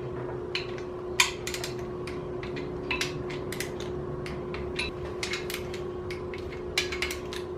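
Click-type torque wrench ratcheting on LS1 main bearing cap bolts as they are tightened to 15 foot-pounds, an irregular run of sharp metallic clicks. A steady low hum runs underneath.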